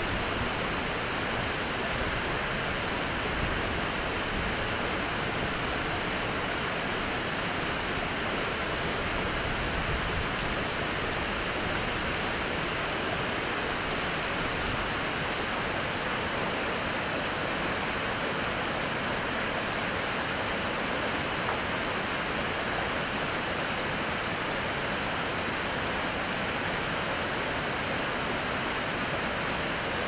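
Steady rush of flowing river water.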